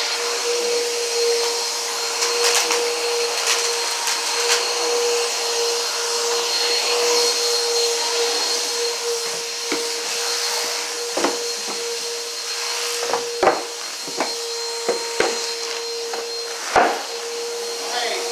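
Steady whirring hum of a running motor with a constant mid-pitched tone. From about nine seconds in come a string of sharp knocks and handling thumps, two of them louder.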